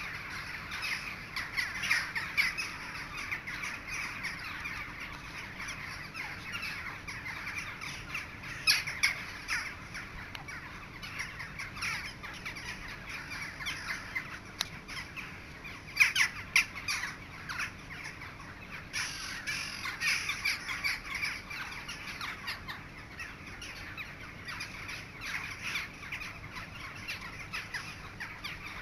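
A large flock of crows flying overhead, many birds cawing at once in a dense, unbroken chorus, with louder clusters of calls about a third of the way in and just past halfway.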